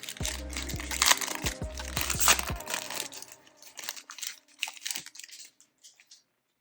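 Foil wrapper of a baseball card pack crinkling and tearing open, busy for about three seconds and then thinning to a few faint rustles. Background music plays underneath.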